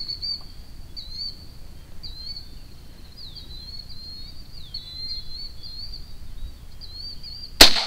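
Small birds chirp and twitter steadily in a high register. Near the end comes a single sharp AR-15 rifle shot, much the loudest sound, which misses low: no target explosion follows.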